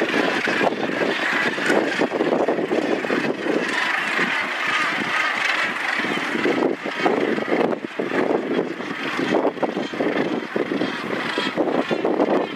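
Northern gannet nesting colony calling, a dense continuous din of many overlapping calls.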